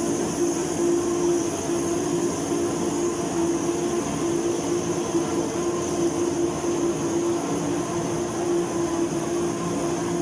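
Steady running of factory machinery on an aluminium tube production line: an even hum with a constant low tone and high whines above it, holding level without pause.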